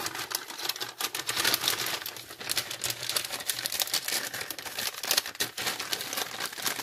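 Plastic and foil packaging crinkling in irregular crackles as an MRE entrée pouch is pushed into its flameless ration heater bag.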